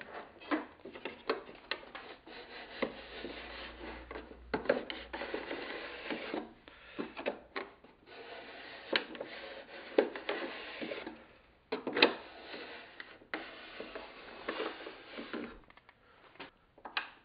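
Robo-Bevel hand tool shaving a bevel along the top edge of a western red cedar strip: repeated scraping strokes of the blade on wood, with sharp knocks as the tool is set down and lifted, dying away near the end.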